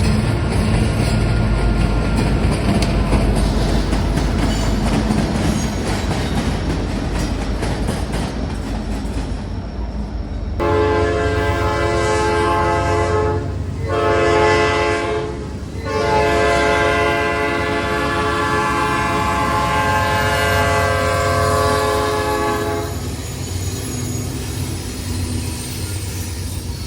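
A train rumbles and clatters past. Then a locomotive air horn sounds a chord in three blasts, two shorter ones about three and two seconds long and a last one held about seven seconds, over the continuing rumble of the train.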